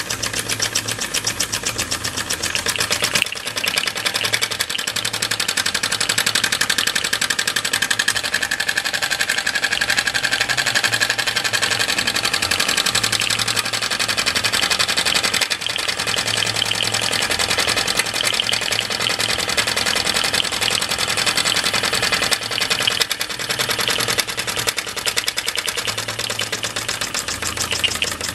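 Early flat-base Mamod SE1 toy steam engine running fast under steam, its single oscillating cylinder chuffing in a rapid, even rhythm as the flywheel spins.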